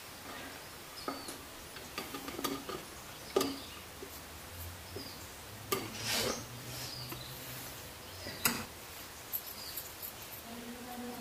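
Metal slotted spoon clinking and scraping against a steel pot while digging through cooked rice, with about half a dozen sharp clinks spread irregularly.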